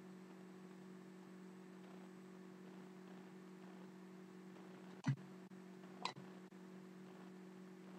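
Trading cards being handled, with two short taps about a second apart a little after halfway, over a faint steady low hum.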